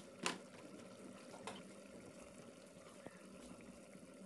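Mutton curry simmering faintly in an open aluminium pressure cooker, a soft steady bubbling hiss. A sharp light click comes about a quarter second in, and a weaker one around a second and a half in.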